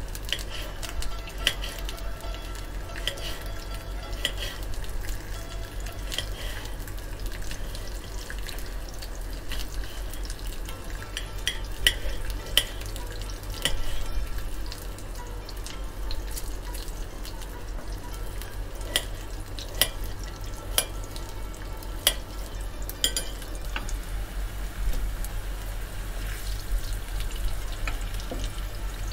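Butternut squash slices frying in hot oil in a pan: a steady sizzle with scattered sharp crackles and pops.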